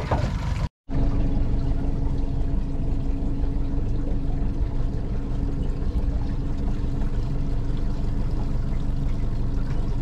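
Outboard motor running steadily at trolling speed, with water rushing and splashing along the aluminium hull. The sound drops out completely for a moment about a second in.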